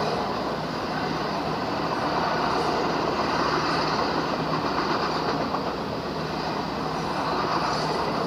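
Freight train of autorack cars rolling past, a steady rumble of wheels on rail with no horn, played back through a computer monitor's speakers.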